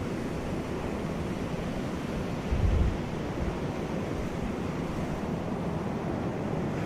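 Sea surf washing steadily onto a beach, with a brief low rumble of wind on the microphone about two and a half seconds in.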